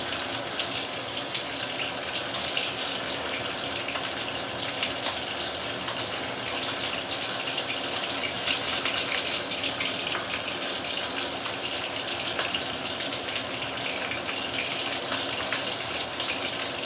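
Oil sizzling steadily around a whole black pomfret pan-frying at medium-high heat, with fine crackles and spits throughout.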